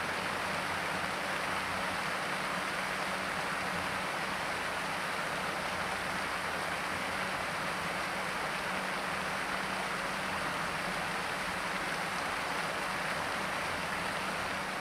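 Dense, continuous jangling of the many large bells worn by a group of kukers, merging into an even steady wash with no single strikes standing out.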